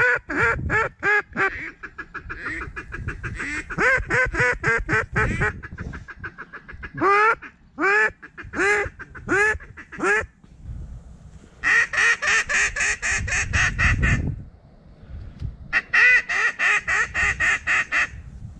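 Loud, close mallard-style quacking in repeated series: short runs of quacks at first, then single quacks about a second apart, then two fast runs of rapid quacks in the second half. A low wind rumble sits underneath.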